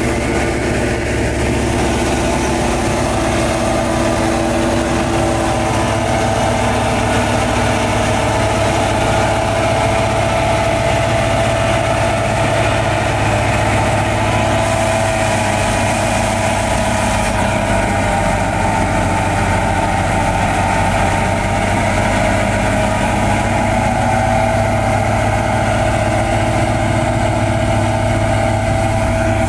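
Massey Ferguson 385 diesel tractor running steadily under load, driving a straw reaper that cuts wheat stubble and blows chopped straw into a trailer. A steady, even whine from the machinery rides over the engine's drone.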